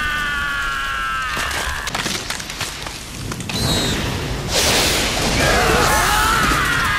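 Anime battle sound effects: a held, slowly falling tone that breaks off about a second in, then sharp impacts and booms, and from about four and a half seconds a loud rushing blast with a wavering tone over it.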